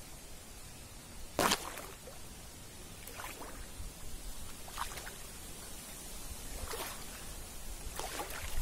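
Faint outdoor background with about five brief rustles spread through it, the loudest about one and a half seconds in.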